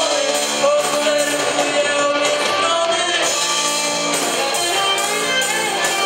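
Live rock band playing: electric guitars, drums and keyboard, with a male voice singing a line that trails off in the first second as the band plays on.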